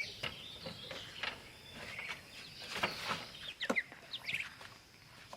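Chickens calling: scattered short clucks and high chirps.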